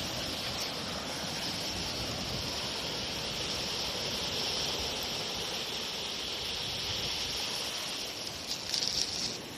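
Seaside ambience: steady wash of surf with wind, and a brief louder rush near the end.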